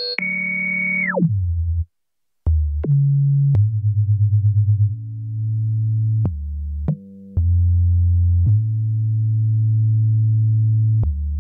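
Novation Circuit Tracks synth preset playing a high held note that dives steeply in pitch about a second in. After a short gap come low sustained bass notes, which pulse rapidly for about a second partway through.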